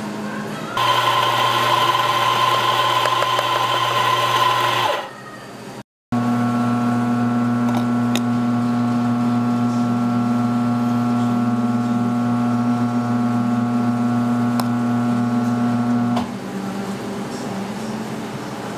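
A small electric motor running at a steady pitch for about four seconds with a bright hiss. After an abrupt cut, a motor hum runs steadily again for about ten seconds with a few faint clicks, then stops.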